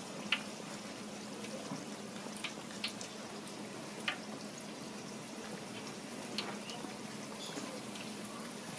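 Slices of toast coated in fish-cake batter deep-frying in hot oil: a steady bubbling sizzle with a few sharp clicks scattered through it.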